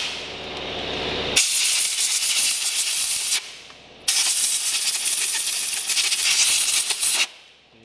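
Compressed-air blow gun blasting air onto engine control unit wiring connectors to dry out moisture. Two long hissing blasts of about two and three seconds, with a short gap between them, each cutting off sharply.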